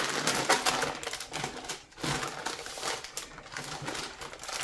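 Baking paper crinkling and rustling in irregular crackles as it is pressed around a rolled minced-meat roll and peeled back off it.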